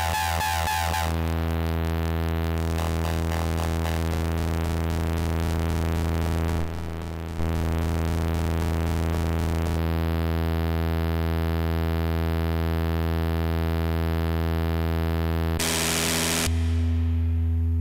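DIY Arduino Nano software synthesizer built on the Mozzi library, holding a steady low electronic drone whose overtones shift in character a couple of times. About three-quarters of the way through, a short burst of hiss-like noise sounds, and then the drone goes on, duller.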